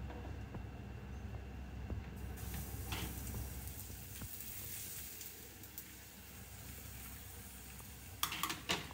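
Pancake batter sizzling in hot oil in a frying pan on a gas hob; the sizzle starts about two seconds in as the batter goes into the pan. The gas burner's low rush drops about four seconds in as the flame is turned down, and a few clicks come near the end.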